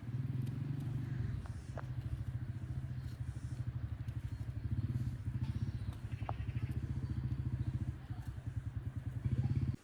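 An engine running steadily with a low, rapid pulse, cutting off suddenly at the end.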